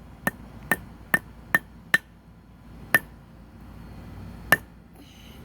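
Hammer striking a fidget spinner, seven sharp blows, each with a brief ringing: five in quick succession about every 0.4 s, then two more about a second and a half apart.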